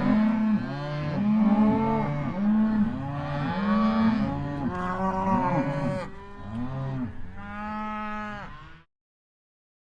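A herd of cows mooing, many calls overlapping at different pitches, each a drawn-out moo that rises and falls. The calls thin out to a few separate moos near the end and stop suddenly about nine seconds in.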